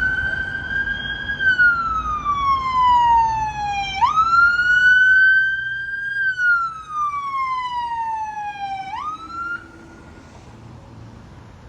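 Fire apparatus siren on the wail: each cycle rises quickly, holds briefly, then slides slowly down, repeating about every five seconds. The siren cuts off near the end, leaving a low rumble underneath.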